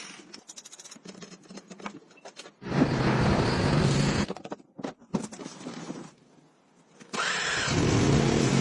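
A run of quick mechanical clicks, then a loud noisy burst of about a second and a half. About seven seconds in, an engine starts running with a steady pitch.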